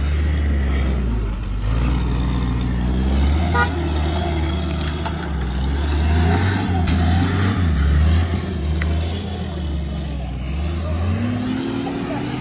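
Ford GPW jeep's engine running under load as it climbs a rough dirt track, its pitch rising and falling with the throttle.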